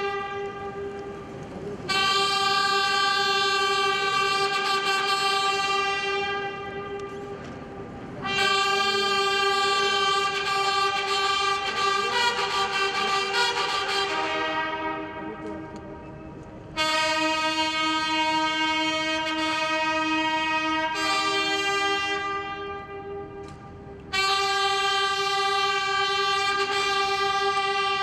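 Brass fanfare with trumpets sounding long held notes. There are four blasts, each about six seconds long, with short breaks between them, and the third shifts to a lower chord partway through.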